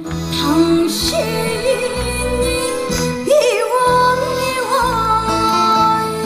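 A woman singing a trot ballad live into a handheld microphone over instrumental accompaniment. She holds long notes with vibrato at their starts, over a steady bass line.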